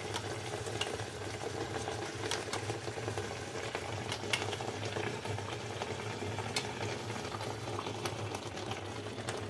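Sugar syrup simmering under a soaked bread kadayıf in a wide enamel pan on a gas burner, a steady bubbling hiss. Scattered light clicks come from a metal spoon against the pan and dessert as syrup is spooned over it.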